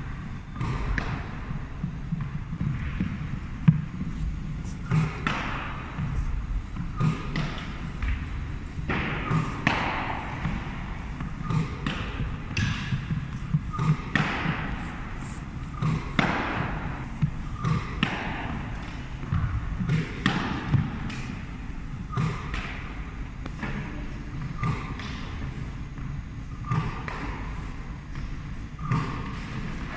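Tennis balls striking a hockey goalie's pads and stick and bouncing on a wooden gym floor, a sharp hit about every one to two seconds over a steady low hum.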